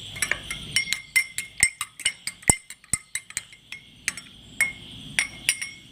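A spoon stirring fresh ginger juice into a glass of hot water, clinking irregularly against the glass several times a second.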